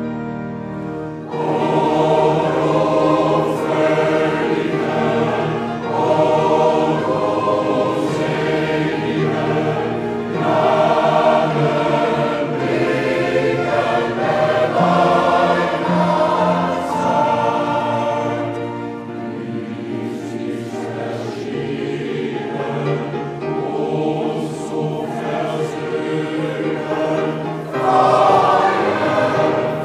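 Large mixed choir of men and women singing in a church, coming in loudly about a second in over a quieter held passage, then swelling and easing as the piece goes on.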